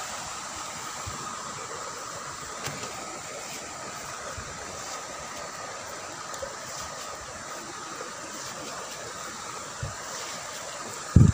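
Steady rush of splashing water from jets pouring into a fish pond, with a thin steady high tone above it. A dull thump near the end.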